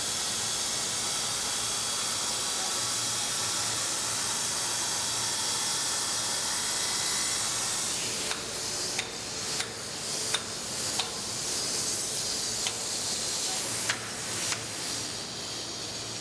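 Angle grinder's disc cutting into a marble block: a steady, loud hissing grind. About halfway through, a series of sharp, irregular knocks begins over the continuing noise.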